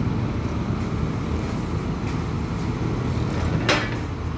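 Diesel engines of SANY hydraulic excavators running under load as they lift a wooden hut, a steady low rumble. A single sharp knock sounds about three-quarters of the way through.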